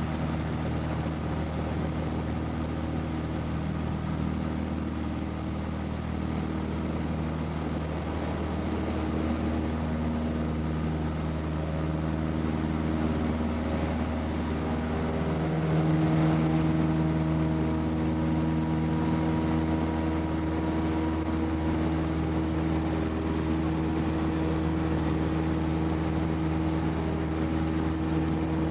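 Cessna 152's Lycoming O-235 four-cylinder piston engine and propeller running steadily. About sixteen seconds in, the engine note rises and gets louder as power is increased, then holds at the higher setting.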